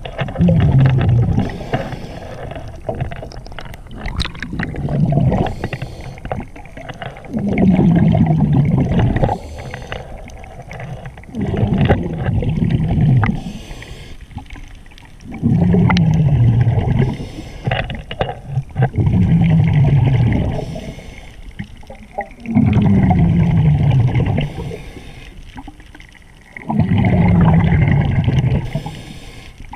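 Scuba diver breathing underwater through a regulator: a bubbling exhalation about every three to four seconds, eight in all, each a low rumble that drops in pitch, with quieter stretches between.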